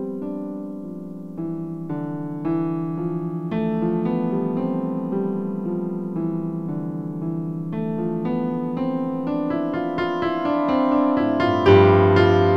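Electro-acoustic piano music: notes struck one after another and left to ring, building slowly in loudness, with a louder, deeper chord entering near the end.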